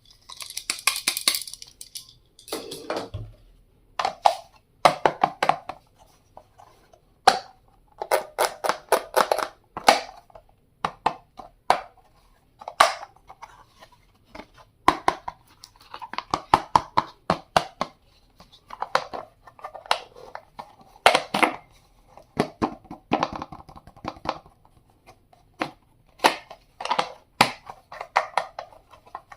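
Hands handling stationery items and their packaging: repeated sharp clicks and taps mixed with short bursts of crinkling and rustling.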